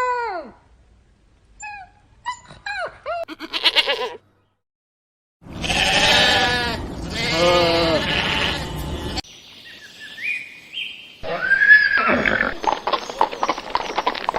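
A string of short animal calls broken by gaps. The loudest are two wavering goat bleats about halfway through, with fainter chirping and pulsed calls before them and another loud call near the end.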